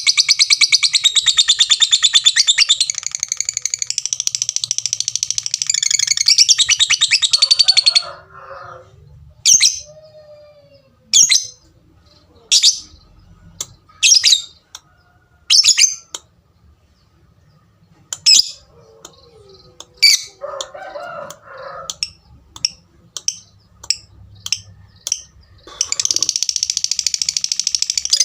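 Lovebird giving a long, rapid, high chatter (ngekek). About eight seconds in it breaks into single sharp 'tik' calls that come closer and closer together, then goes back into the long chatter near the end.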